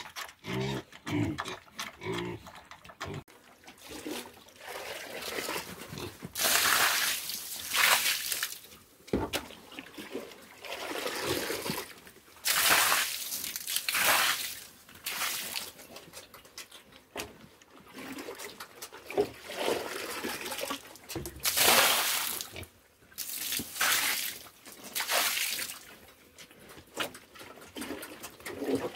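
Water thrown in several spurts of a few seconds each onto a concrete pig-pen floor, splashing over the pigs to cool them down. Pigs grunt briefly in the first few seconds.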